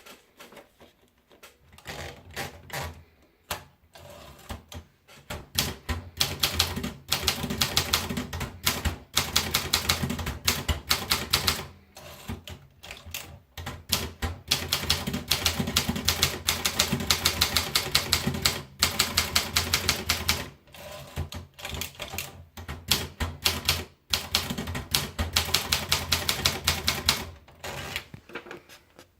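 Optima Elite typewriter being typed on: its keys strike in fast runs of sharp clacks, broken by short pauses between bursts.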